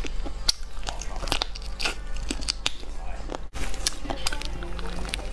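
Close-up biting and chewing of crispy battered fried chicken: a quick, irregular series of sharp crunches. There is a momentary dropout about three and a half seconds in.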